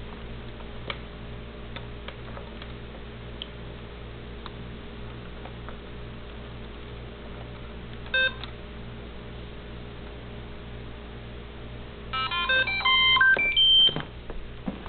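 iRobot Roomba's built-in speaker beeping as it is started in diagnostic mode: one short beep, then a few seconds later a quick run of beeps stepping up and down in pitch, like a short electronic tune.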